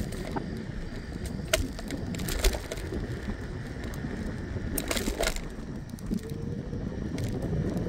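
Scooter rolling along a concrete sidewalk: steady low rumble of the wheels on the pavement with some wind on the microphone, broken by a few sharp clacks as it jolts over the slab joints.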